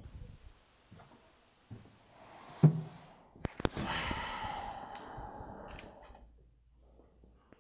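A thump as a man drops into a leather office chair, then two sharp clicks and about two seconds of rustling that fades out.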